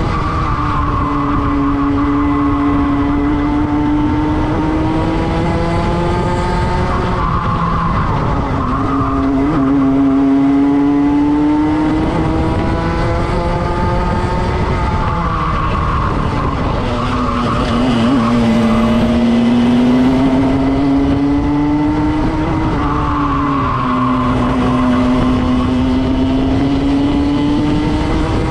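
Two-stroke racing kart engine at full throttle, its pitch climbing steadily along each straight and dropping sharply three times as the driver lifts and brakes for corners, then picking up again on the exits.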